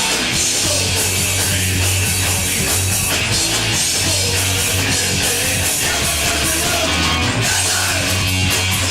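Punk rock band playing live at full volume: distorted electric guitar, a bass holding low notes and a drum kit with a steady wash of cymbals.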